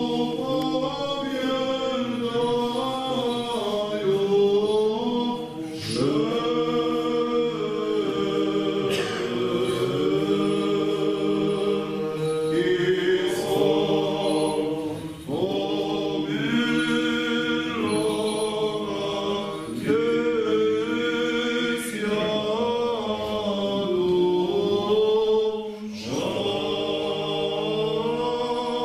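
Orthodox church chant sung a cappella by a choir, in long held phrases with short breaks for breath every few seconds.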